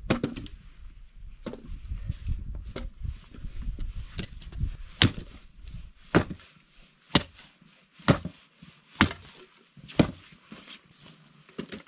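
Hatchet chopping firewood into small, stove-sized pieces: about a dozen sharp blows on the wood, coming roughly once a second in the second half.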